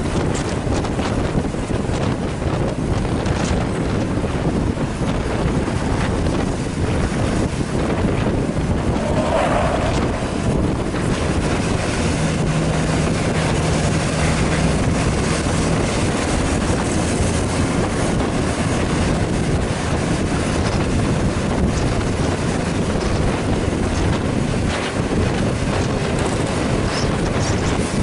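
Wind buffeting the microphone over steady road and engine noise from driving close behind a bus, with a low steady drone for a few seconds about midway.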